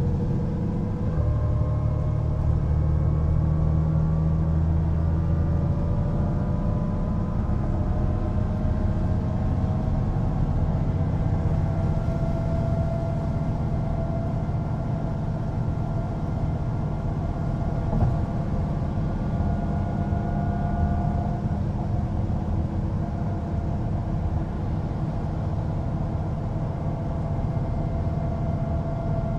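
Mercedes-Benz O405NÜ bus under way: a steady diesel engine rumble with a whine that climbs slowly in pitch as the bus gathers speed, then levels off.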